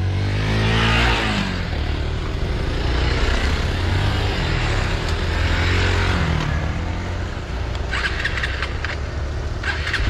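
Hero Xpulse 200 single-cylinder four-stroke engine running as the bike rides a dirt track, its pitch rising and falling with the throttle about a second in and again around six seconds in. Near the end comes a brief patch of sharp rattling clicks.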